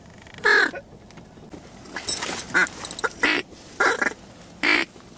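Duck call blown in a quick series of short quacks, about six in five seconds, calling to an incoming bird.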